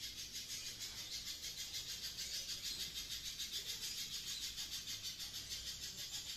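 Spiderhunter singing gocor: a continuous, rapid, high-pitched chattering trill with a regular swell a few times a second.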